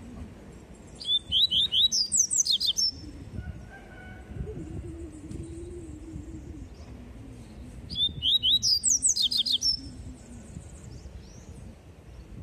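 A caged papa-capim (coleiro) seedeater singing its 'tui tui' song: two short phrases, each a rapid run of sharp, high notes lasting under two seconds, one about a second in and one about eight seconds in. A steady low hum runs underneath.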